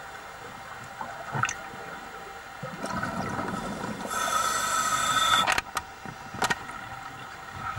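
Scuba diver breathing through a regulator underwater: a bubbling exhalation, then about four seconds in a loud hissing inhalation with a whistling edge that cuts off sharply, followed by a couple of clicks.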